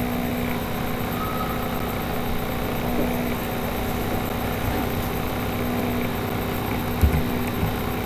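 Steady background hum and hiss with no speech, and one short low thump about seven seconds in.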